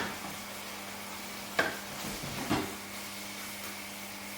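Curry sauce sizzling and cooking in a pan as it is stirred, with a faint steady hum underneath; two sharp knocks of the spoon against the pan, about a second and a half and two and a half seconds in.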